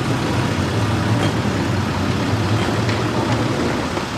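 Steady street traffic noise: a low rumble of vehicles running, with no single event standing out.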